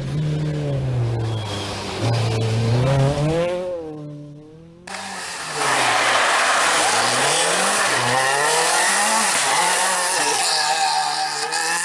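Renault Clio R3 rally car's four-cylinder engine revving hard, its note rising and falling through gear changes. The sound fades away about four seconds in, then comes back with a loud rushing noise over the engine note.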